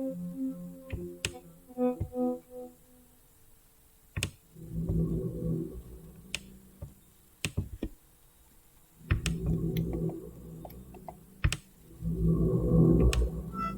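Sci-fi synthesizer sounds from Rast Sound's Sounds of Mars plugin: a run of short pulsing pitched notes, then three swells of low, rumbling textured sound, each a second or two long. Sharp clicks sound between them.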